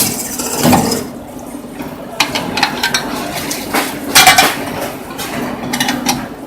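Metal parts clinking and clattering in a few short bursts, the loudest about four seconds in, over the steady hum of the drilling machine's motor.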